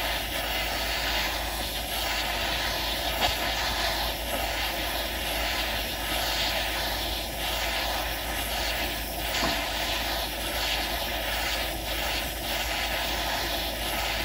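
Butane micro torch flame burning with a steady hiss, heating a fine silver wire ring to fusing temperature.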